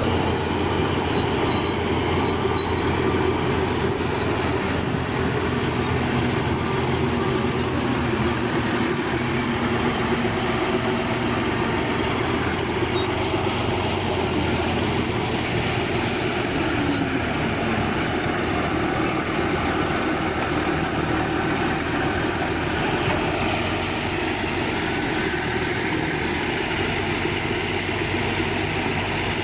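Bulldozer working: its diesel engine running steadily under load, with the rattle of the steel tracks.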